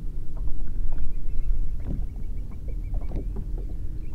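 Wind rumbling on the microphone as a kayak drifts on choppy open water, with a few small knocks and water slaps against the hull.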